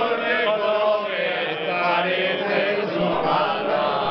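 Men's voices singing an Aragonese jota together in long, drawn-out held notes.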